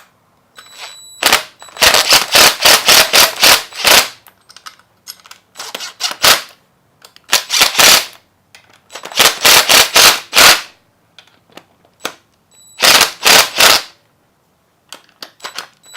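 Rapid runs of sharp clicks from a ratchet as the engine case cover bolts are tightened. The clicks come in about five bursts, the longest lasting a couple of seconds.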